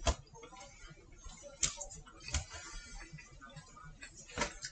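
A few light knocks and clicks, about four spread across a few seconds, from pans, plates and food being handled on a kitchen hob.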